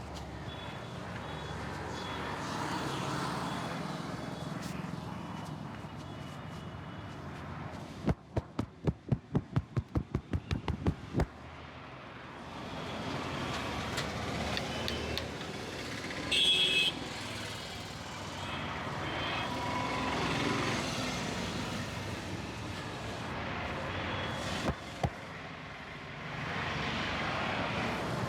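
A quick run of about thirteen sharp hand slaps, about four a second, lasting some three seconds: percussive massage tapping. Steady street traffic noise runs underneath.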